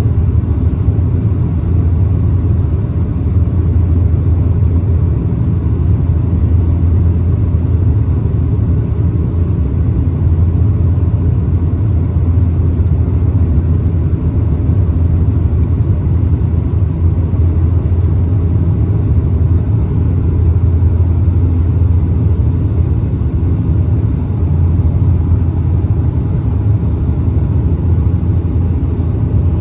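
Cabin noise beside the propeller of a Bombardier Dash 8 Q400: the PW150A turboprop and its six-blade propeller drone steadily with a deep hum and rushing air, loud and unchanging, while the aircraft is on its low approach.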